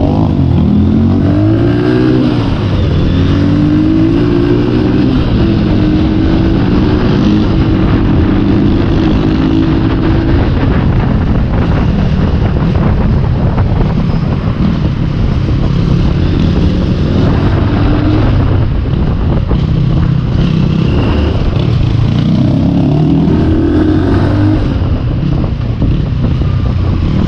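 Off-road motorcycle engine running under way, its revs rising and falling through the first ten seconds and again near the end, over a steady low rumble.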